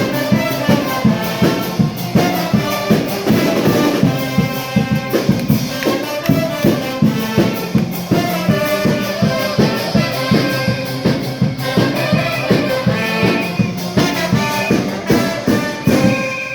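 Charanga brass band playing: trumpets and trombones carrying a tune over a steady drumbeat, about two beats a second.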